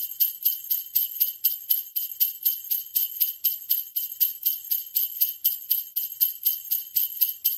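Sleigh bells jingling in an even, steady rhythm of about four shakes a second.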